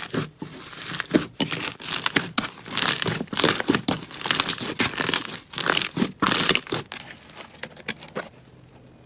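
Crunchy slime being squeezed and pressed, a dense run of crackling and popping that thins out and stops about a second before the end.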